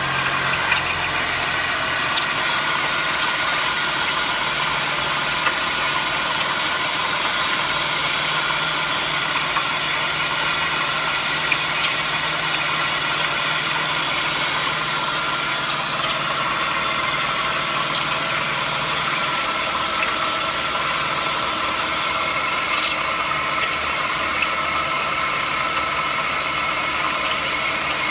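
Engine idling steadily, with thin, steady high-pitched tones over the running: the unexplained "bird" sound the owner is asking about.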